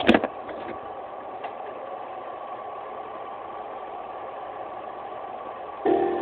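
Steady hum and hiss of room and microphone noise, with a brief bump at the start and a few faint clicks. Near the end an instrument starts playing sustained notes.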